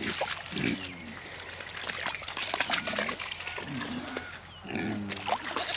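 Several short calls from goats and pigs, with the faint splashing of hooves wading through shallow floodwater.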